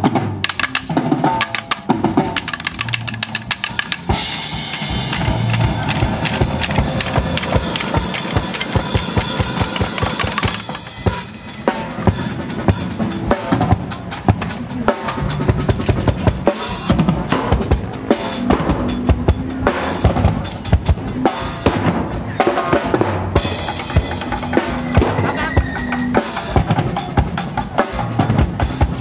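Live percussion ensemble playing a fast, dense rhythm with sticks on a drum kit, large drums and plastic buckets and barrels. A thicker, rolling wash of strokes fills the first third, then a driving beat with heavy low drum hits.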